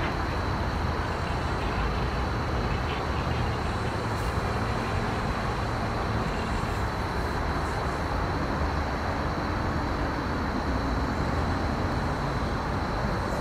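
Steady drone of distant highway traffic on elevated road bridges, a continuous wash with no single vehicle standing out.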